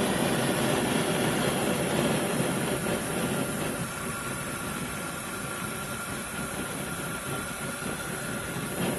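Homemade propane tube forge burner running at about 5 PSI: a steady rushing of gas and flame. The sound drops a little about four seconds in as the burner's air choke is worked, the flame sound changing with the air intake.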